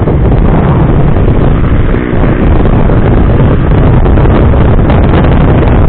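Wind buffeting the microphone of a moving motorcycle, a loud steady rush with the bike's engine and road noise underneath.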